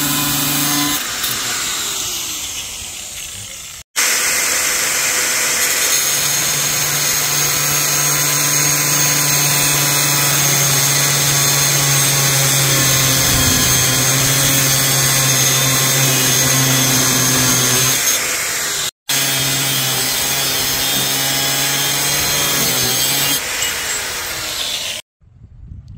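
Bosch angle grinder with a cut-off wheel cutting through 5/8-inch threaded steel rod: a steady motor whine under a loud grinding hiss. It winds down after about a second and again near the end, as a cut finishes and the piece drops off.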